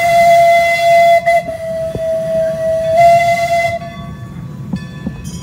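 Steam whistle of the 1920 Cagney Bros. 4-4-0 miniature steam locomotive blowing a long, steady blast with a steam hiss. The blast breaks for an instant about a second in and stops a little before the end, leaving the quieter rumble and knocks of the train rolling along the track.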